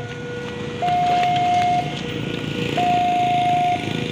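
Railway level-crossing warning alarm sounding, an electronic signal that alternates between a higher and a lower steady tone, each held about a second. It warns that a train is approaching and the barrier is coming down.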